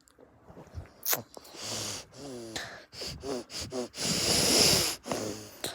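A sneeze build-up: breathy gasps and short pitched 'ah' sounds, then one long, loud, hissy sneeze blast about four seconds in.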